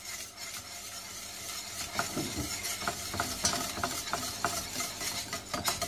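Wire whisk beating béchamel sauce in a stainless steel pot: a wet swishing, with the whisk wires clicking against the pot several times a second from about two seconds in.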